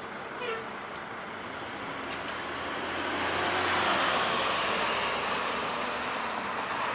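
A vehicle passing by: steady road noise swells to a peak about four seconds in and then fades.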